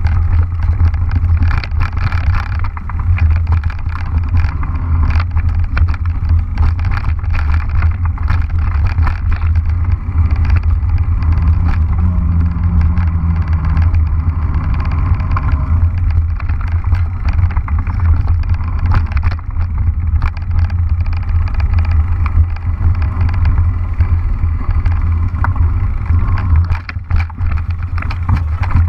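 Mountain bike rolling fast over a leaf-covered dirt trail: steady wind rumble on the microphone with tyre noise and frequent rattling clicks from the bumps.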